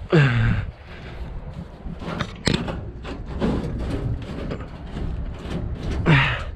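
Metal knocking and scraping from a Bizon Rekord combine harvester's sieve being pulled sideways out of its runners by hand, with one sharp metallic click about two and a half seconds in. A loud, short sound falling in pitch comes right at the start and again near the end.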